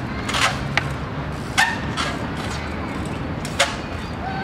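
Trials bicycle hopping on a log and wooden pallets: sharp knocks of the wheels landing, four in all, the loudest about one and a half and three and a half seconds in, some followed by a short ring.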